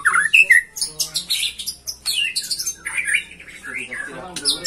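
Birds calling in a busy stream of chirps, squawks and whistled notes sliding up and down, mixed with rapid high trills.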